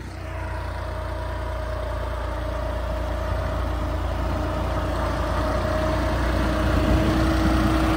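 Diesel tractor engines running steadily under load, with a steady whine. The sound slowly grows louder. The New Holland 3630 is pulling in first gear and bogging down.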